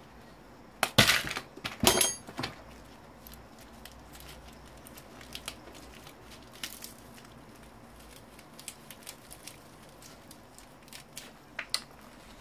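Parts of an old CRT monitor being broken and pried apart by hand: two loud bursts of cracking and snapping about one and two seconds in, then scattered light clicks and taps, with two sharper snaps near the end.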